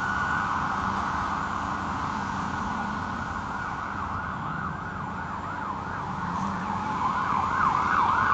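AI-generated sound effect of distant city sirens: emergency sirens wailing over steady background noise. The pitch sweeps up and down, more quickly and louder in the last few seconds.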